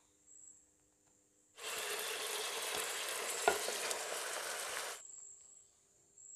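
Frying sizzle in a hot pot as boiled Maggi noodles are tipped onto tomato masala, with one sharp knock about halfway through. It starts and cuts off abruptly, about three seconds long.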